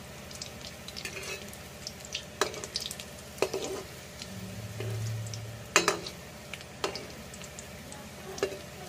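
Batter fritters deep-frying in hot oil in a kadhai, sizzling steadily, with a perforated metal skimmer clinking and scraping against the pan several times, the loudest clink about six seconds in.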